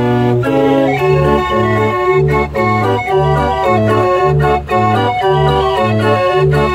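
48-key Limonaire Dutch street organ playing a tune: a melody and chords of pipe notes over a steady, regularly repeating bass.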